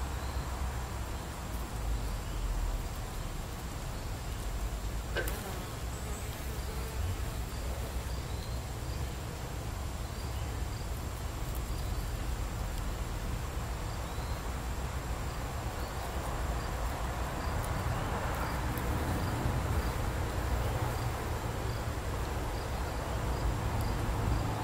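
Outdoor insects calling: a steady thin high-pitched whine with soft chirps repeating over it, above a low steady rumble, and a single click about five seconds in.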